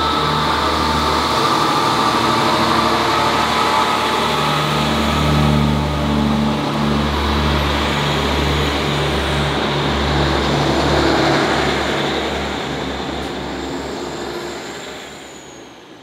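Class 143 Pacer diesel railcar pulling away, its underfloor diesel engine throbbing with an uneven pulsing note under rail noise. The sound fades out over the last few seconds.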